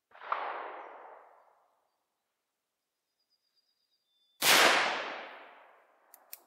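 Two shots from an Uberti 1851 Navy .36 cap-and-ball revolver firing black powder, about four seconds apart, the second louder; each report fades away over about a second and a half. A few short sharp clicks follow near the end.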